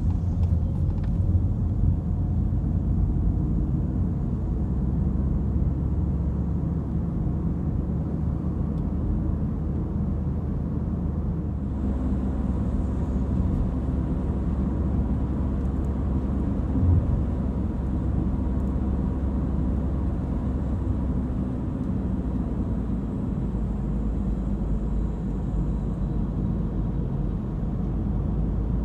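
Steady low rumble of a car driving along: engine and tyre noise.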